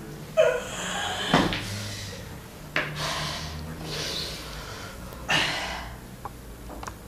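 A young man's strained, sob-like gasps and sharp breaths, four or five sudden bursts, the first with a short pitched cry in it. Cloth and a box rustle as he hunches over it.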